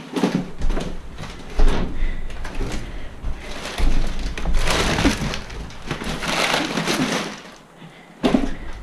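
Close, crinkly rustling and handling knocks as someone moves about and maneuvers a bicycle, coming in uneven surges. There is a brief lull near the end before a sharp knock.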